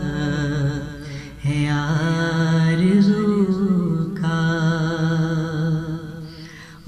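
Male voice singing a naat unaccompanied, drawing out long held notes with wavering ornaments. It dips briefly about a second in and trails off near the end.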